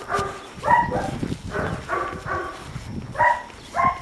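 Puppy barking: a series of short, high barks, about two a second, with a brief pause about three seconds in.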